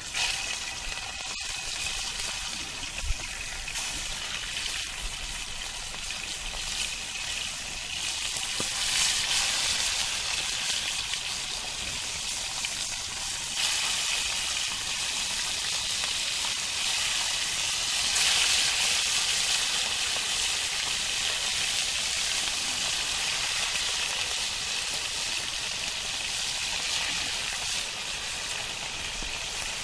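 Pieces of fish frying in hot oil in a pan over a wood fire, a steady sizzle. It comes in sharply at the start and swells louder about 9 seconds and 18 seconds in.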